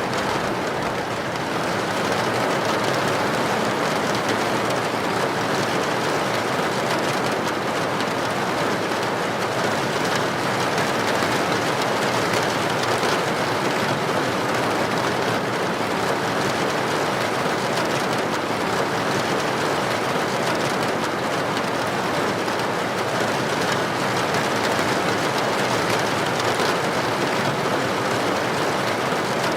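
Heavy rain drumming steadily on a tin roof, a dense, even patter with no let-up.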